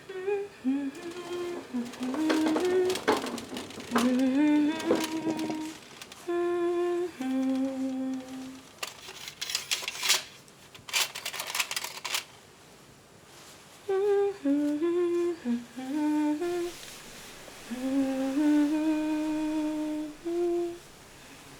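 A person humming a slow tune in two phrases, stepping between held notes. Between the phrases, about ten seconds in, comes a short run of sharp clicks and rattling.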